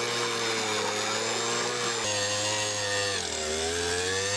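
Power ice auger running while boring through ice. Its motor pitch wavers, dips about three seconds in as the bit loads up in the ice, then climbs again.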